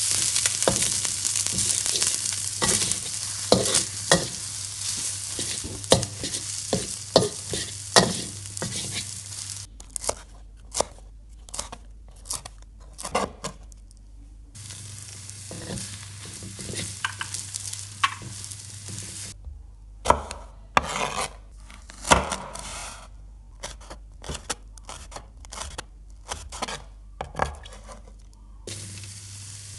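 Glass noodles with egg and minced pork sizzling in a wok, stirred with a metal spatula that scrapes and knocks against the pan. About ten seconds in this gives way to a knife chopping on a wooden board in separate strokes, spring onion and then red chillies, with a stretch of steady hiss midway. The sizzling and stirring come back near the end.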